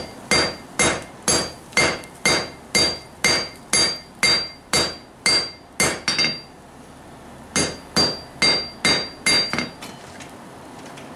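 A hand hammer strikes a white-hot forge-welded damascus billet on a steel anvil at a steady pace of about two blows a second, and each blow rings. The smith is re-welding the billet to close a suspected bad weld. The strikes stop for about a second partway through, then start again for a shorter run and end, leaving a faint steady hiss.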